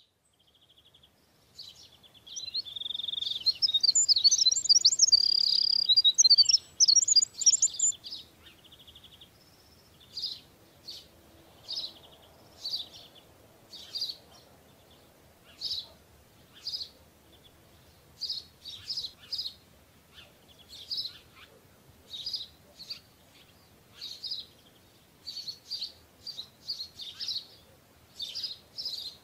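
Birdsong: a dense run of fast high chirps and warbles for the first several seconds, then single short chirps repeated about once a second.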